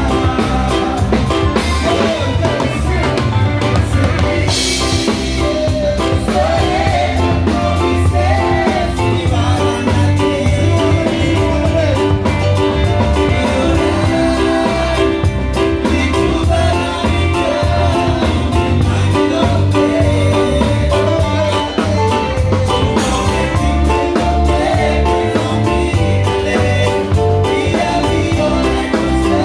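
Live band playing a song with a steady beat on drum kit and cymbals, heard loud from on stage, with a lead singer's voice over it through the PA in places.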